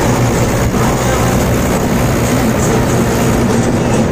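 Mahindra 585 DI tractor's 50 hp diesel engine running steadily under load, hauling a loaded trolley at road speed, mixed with tyre and road noise.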